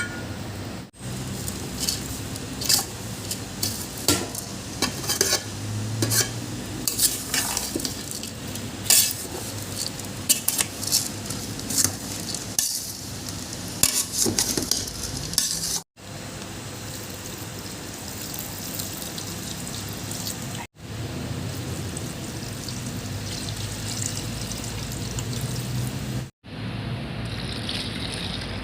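Food frying in a cooking pot while a spoon scrapes and clinks against the pot as it is stirred, over a steady sizzle. The clinks and scrapes are busiest in the first half, and the sound drops out briefly at a few cuts.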